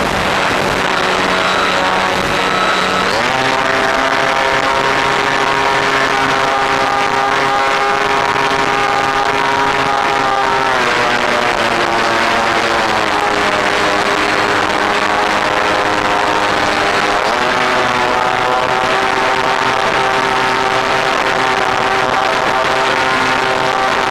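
Electric motor and pusher propeller of an FX-79 flying wing whining steadily in flight, over a rush of wind, as heard by a camera on board. The pitch glides down about ten seconds in and climbs back up a few seconds later as the motor slows and speeds up again.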